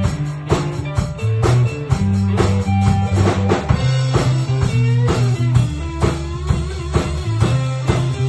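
Rock band playing live: electric guitar, bass guitar and drum kit, with pitch-bent guitar notes from about four seconds in.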